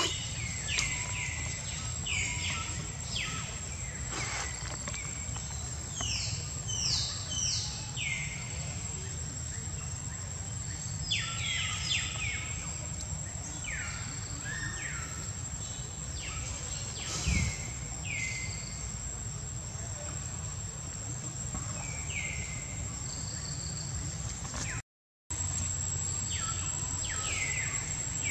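Outdoor ambience: birds calling in repeated short chirps that slide downward, over a steady high-pitched insect drone and a low steady rumble. The sound cuts out for a moment near the end.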